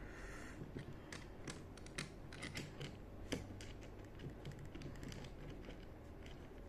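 Light, irregular clicks and taps of small plastic and metal parts being handled and fitted together, likely the parts of a motorcycle brake master cylinder. The clicks are thickest in the first few seconds and thin out after.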